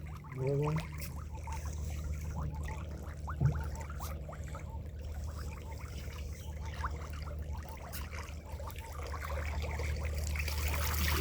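Water trickling and splashing, with scattered small splashes over a steady low hum.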